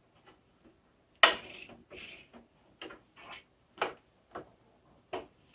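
Sharp clicks and light knocks of fabric and tools being handled at a sewing machine: a louder click with a short rustle a little over a second in, then several single clicks about half a second to a second apart.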